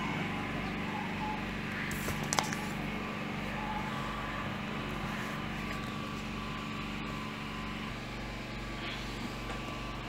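Steady machine hum in the room, its low tones changing slightly about eight seconds in, with one sharp click about two and a half seconds in.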